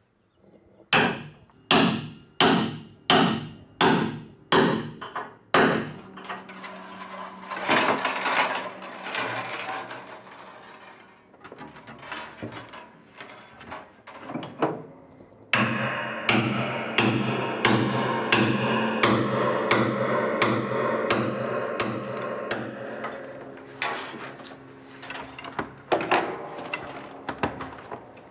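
Hammer blows driving new tuning pins into a 1927 Steinway grand's pinblock through the cast-iron plate: about eight sharp, ringing strikes in the first six seconds. After that come dense clicking and steady ringing metallic tones as the new piano wire is strung and pulled up.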